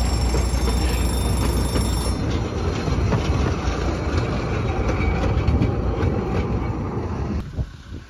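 Gartell Light Railway passenger coaches rolling past over the level crossing, wheels rumbling on the rails. The rumble drops away suddenly near the end as the last coach clears.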